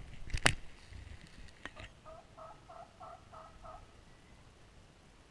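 Merriam's wild turkeys calling: a series of about five yelps, roughly three a second, in the middle. It is preceded by a sharp loud snap about half a second in, the loudest thing here, and a fainter click a second later.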